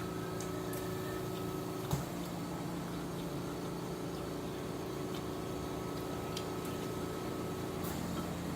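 Quiet eating noises: small scattered clicks of utensils and mouth sounds, one sharper click about two seconds in, over a steady electrical hum that stops shortly before the end.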